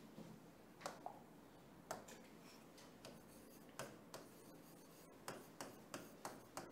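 Faint, scattered small clicks and taps at irregular intervals, about ten in all, over quiet room tone.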